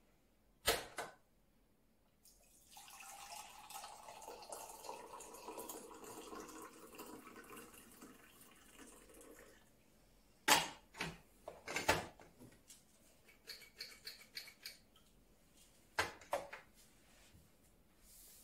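Water pouring steadily for about seven seconds, with a sharp knock just before it and several sharp knocks and clinks of crockery on a countertop after it.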